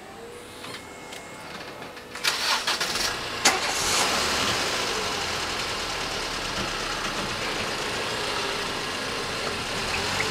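Railway level-crossing barrier booms lifting: a burst of clattering mechanical knocks about two seconds in, ending in a sharp click about a second later. Then the steady noise of car engines as waiting vehicles move off over the crossing, with a low engine hum setting in near the end.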